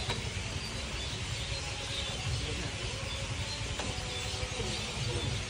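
Outdoor background noise: a steady low rumble and hiss, with a faint click a little before four seconds in.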